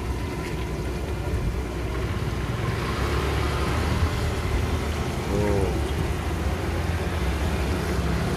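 Hot oil sizzling steadily in a large wok as battered fritters deep-fry, with metal tongs stirring through them, over a low steady hum.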